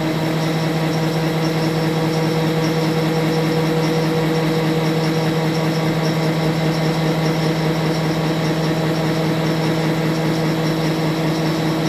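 SCMI Assembla E case clamp's drive running with a steady, even hum as its upper pressure beam travels upward.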